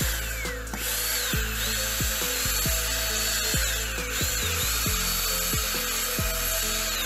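Handheld electric blower running steadily, blowing dust out of an opened angle grinder's switch and brush housing, with a faint whistle that rises and falls. Background music plays underneath.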